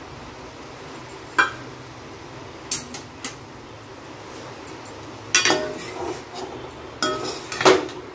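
Steel utensils clinking against a kadai: a few separate sharp metallic clinks, then a denser run of knocks and clinks in the last few seconds as the steel spatula is taken up in the pan. A faint steady hum runs underneath.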